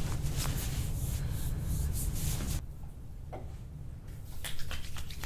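Cloth rustling and rubbing as it is spread out, stopping suddenly about two and a half seconds in; a few soft clicks follow.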